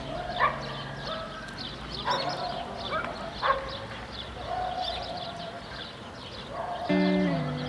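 Dogs barking a few times, with small birds chirping throughout. Music comes in near the end.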